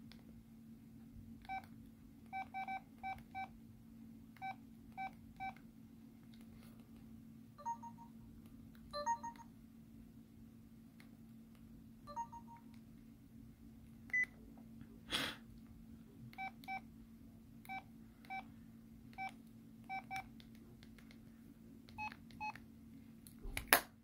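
LG Helix MT310 flip phone's keypad beeping as its menu buttons are pressed: about twenty short, single beeps, mostly at one pitch with a few at another, over a steady low hum. A sharp click comes about fifteen seconds in and a louder one just before the end.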